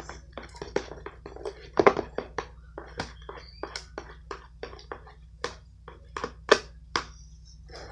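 Spoon, used bottom side down, mixing lotion into shaving cream on a flat surface: an uneven string of soft taps and clicks, a few a second, with a couple of louder ones.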